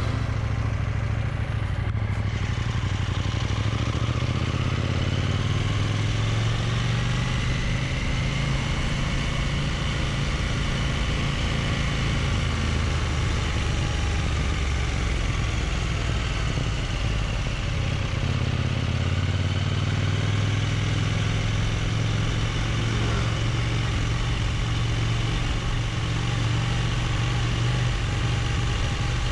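Motorcycle engine running at low speed on light throttle, its pitch rising and falling gently, under a steady hiss.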